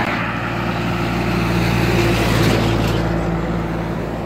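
A motor vehicle going past on the road: steady engine hum under tyre and wind noise, loudest about two seconds in.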